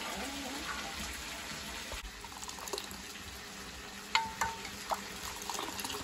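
A metal ladle stirring and scooping thick yellow liquid in an aluminium pressure cooker, with a few sharp metallic clinks against the pot. The loudest clink, about four seconds in, rings briefly, over a steady low hiss.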